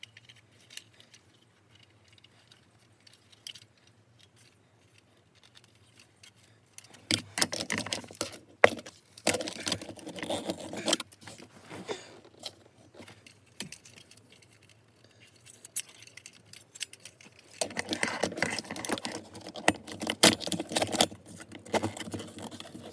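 Plastic phone mount being clamped and adjusted on a car's rearview mirror: a stretch of rattling and clicking from about seven to eleven seconds in, with one sharp click, then quiet handling, and more rattling and clicking from about eighteen seconds in.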